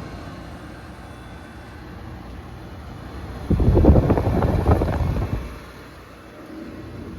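2004 Daewoo DWC-054R 5,350 BTU window air conditioner running with a steady noise. A little over three seconds in it gives a loud rattling shudder for about two seconds, then settles back to a quieter steady running sound.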